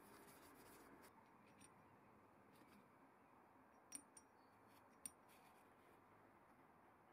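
Near silence, broken by faint metallic clicks of small steel lathe-turret parts being handled by hand: two close together about four seconds in and a third about a second later.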